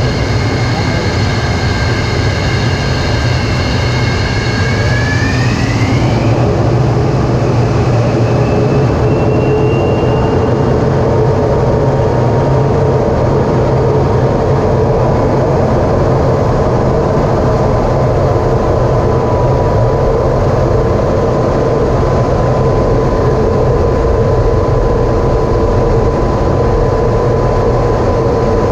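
MiG-23UB jet engine heard from inside the cockpit. Its high whine sweeps upward about five to six seconds in as the engine power rises, then it settles into a loud, steady rumble with a constant hum.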